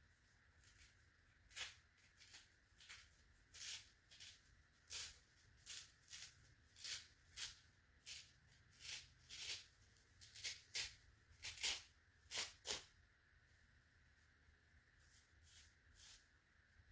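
A foam scrub sponge with a scouring-pad layer being torn apart by hand. It gives a run of short ripping sounds, some in quick pairs, about one a second. They pause about two-thirds through, then a few softer rips come near the end.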